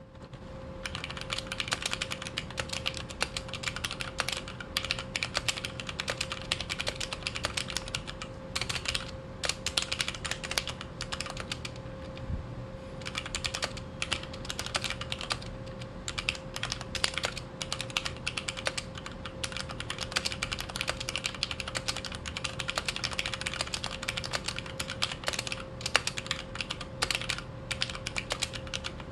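Steady fast typing on a Xiaomi MK02 Pro mechanical keyboard with Cherry MX Red linear switches: a dense clatter of keystrokes, broken by a couple of brief pauses.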